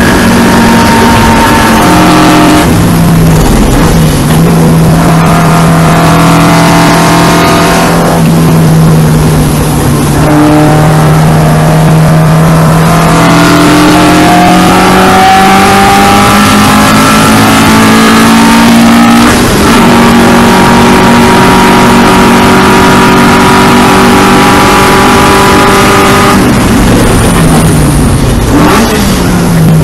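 In-car sound of a 2-litre four-cylinder 1960s saloon racing car driven hard on track. The engine note drops as the car lifts and slows for a bend a few seconds in, climbs through the gears with a gear change about two-thirds through, then drops again as it brakes for the next corner near the end.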